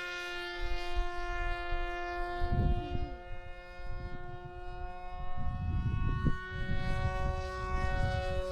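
Electric motor whine of a foam-board RC Avro Vulcan model in flight: a steady, high, many-toned whine at constant throttle. Wind buffets the microphone about two and a half seconds in and again from about five and a half seconds in.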